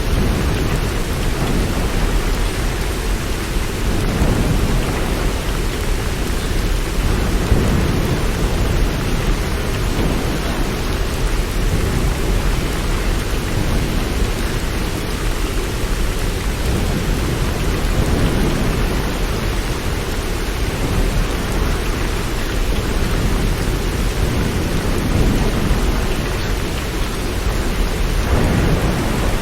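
Steady rain with a low rolling rumble of thunder underneath that swells and fades several times.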